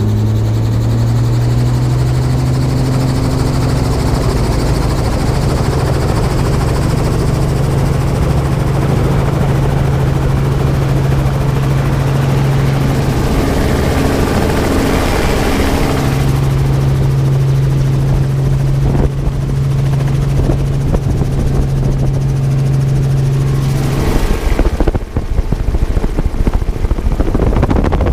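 Light helicopter's engine and rotor running at power as it lifts off and climbs, heard from inside the doorless cabin as a steady low drone that rises slightly in pitch at the start. About 24 seconds in, wind buffeting the microphone takes over.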